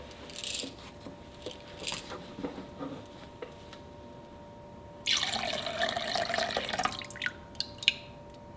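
Baking-soda water poured from a small glass bowl into a large glass bowl of clear glue: a splashing pour of about two seconds past the middle, with a few last drips after it. A few light knocks come first as the bowl is handled.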